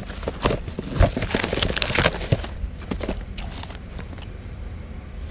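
Rummaging through a plastic storage tote by hand: items knocking against each other and the tote's sides, with cardboard and paper rustling. It is busiest in the first three seconds and quieter after.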